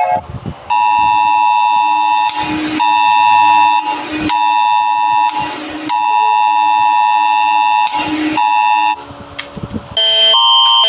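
Emergency Alert System–style attention signal: a steady, loud two-tone electronic alarm, cut into a few times by short bursts of noise. Just before the end it switches to a quicker pulsing alarm of alternating pitches.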